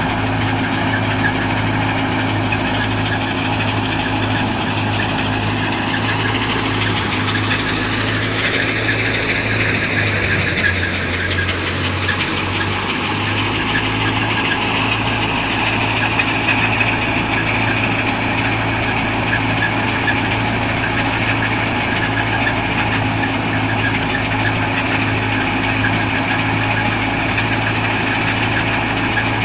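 Tractor diesel engine running steadily, belt-driving a stationary wheat thresher. The thresher's drum and fan add a steady rushing noise over the engine's low hum as wheat sheaves are fed through.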